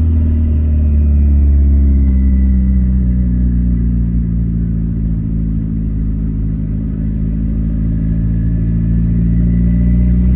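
Turbocharged, carbureted VW AP 1.8 engine in a square-body Gol running under light load at low revs while driving; its note dips slightly in the first couple of seconds, then holds steady.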